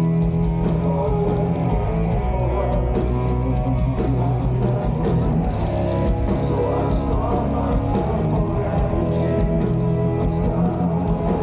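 Melodic death metal band playing live at full volume: distorted electric guitars, bass and drums in one dense, unbroken wall of sound.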